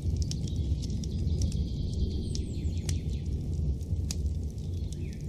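Campfire sound effect: a fire crackling with scattered sharp pops over a low steady rumble, with birds chirping.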